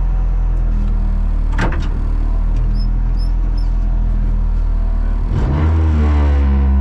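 Renault Clio Rally5's turbocharged four-cylinder engine idling, heard from inside the cabin, with one sharp click about one and a half seconds in. About five and a half seconds in the revs rise and are held steady while the car stands still, as at the start line waiting to launch. Three faint short high chirps come midway.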